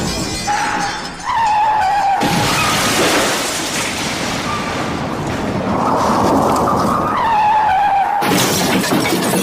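Car crash sound effect: loud crunching and shattering glass, with a high squealing tone that comes in briefly twice, about a second in and again about seven seconds in.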